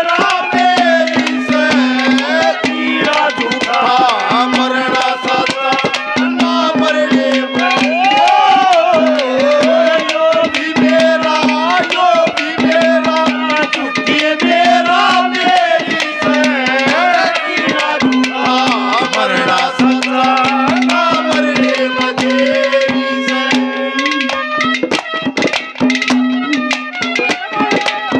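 Instrumental Haryanvi ragni music: hand drums playing a dense beat under a gliding melody line and a held drone note.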